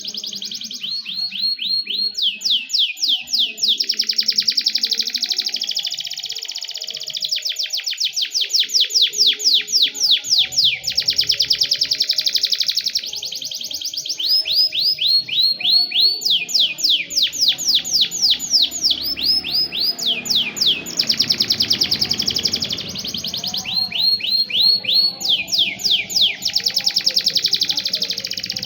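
Domestic canary singing continuously in long, fast trills of high, downward-sweeping notes, the phrases changing pace every few seconds between slower rolls and dense rapid runs.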